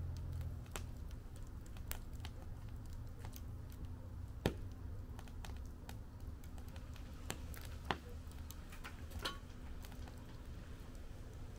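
Wood fire in a fire pit crackling, with irregular sharp pops; the loudest come about four and a half and eight seconds in. Underneath runs a low steady rumble.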